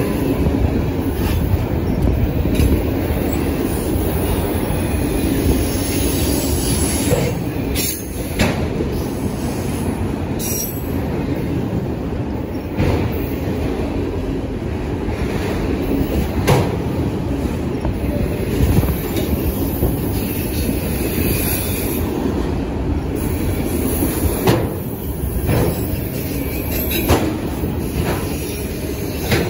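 Freight train of autorack cars passing close by: a steady rumble of steel wheels on rail, with irregular clanks and rattles as the cars roll over the track.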